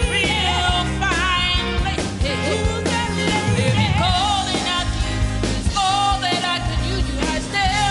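Live blues band playing a rock and roll number: strong female vocals with vibrato, two women singing, over bass guitar, drums and keyboards.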